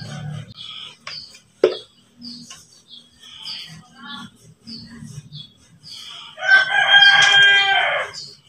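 A rooster crows once near the end, a loud call lasting nearly two seconds, over a small bird's short high chirps repeated throughout.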